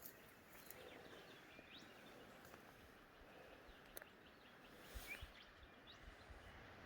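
Near silence: faint outdoor bush ambience with a few soft, short bird chirps and occasional small clicks.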